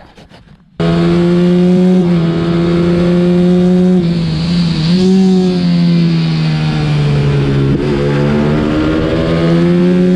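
A 125cc racing minibike's engine heard onboard at race pace, held at high revs. The revs dip briefly about five seconds in, drop near eight seconds, then climb again toward the end.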